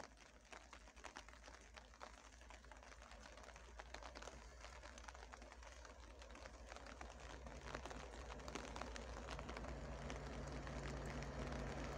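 ST44 diesel locomotive approaching from a distance while running light: a low engine drone and hum that grow steadily louder. Scattered light ticks run over it.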